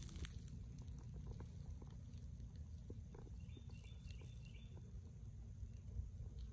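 Outdoor ambience at a home apiary: a steady low rumble with scattered light taps and clicks, and a bird's short run of chirps about four seconds in.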